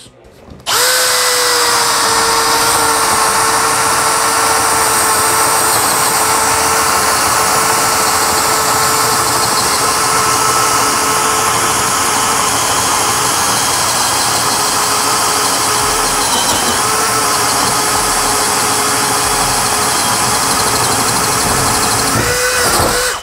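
Bosch GSB 185-LI 18 V cordless drill boring a hole with a 22 mm spade bit in angelim hardwood. The motor runs at a steady pitch under load for about 22 seconds, starting about a second in and stopping just before the end.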